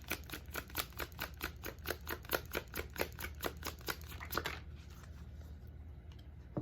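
A tarot deck being shuffled by hand, the cards slapping together in a quick, even rhythm of about six strokes a second, stopping about four and a half seconds in.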